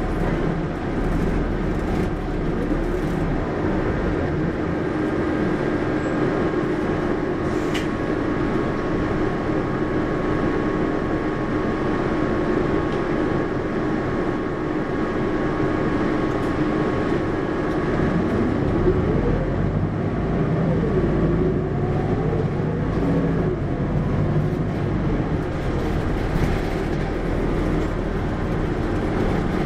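Hino QDG-KV290N1 city bus under way, heard from on board: a steady diesel engine drone with road noise. The engine pitch rises and falls a few times from about 18 seconds in as the bus pulls away and changes speed, and there is one brief sharp click near 8 seconds.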